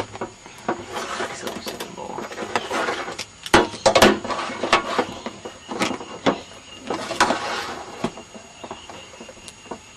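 Handling noise from setting up test gear: rustling and scattered clicks, with a few sharp knocks about three and a half and four seconds in.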